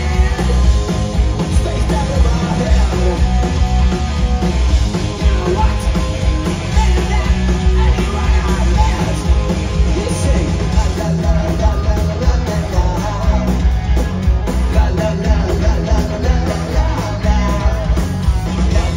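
Live punk rock band playing loudly: electric guitars, bass and drums, with a male singer's voice over them.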